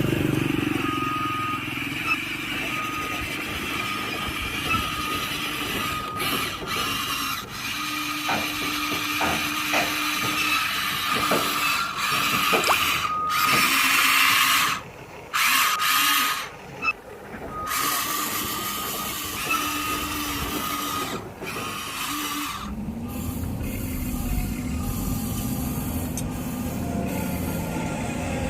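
Small electric motors and gearboxes of remote-control construction models whirring as they work, with a repeated short beep like a reversing alarm.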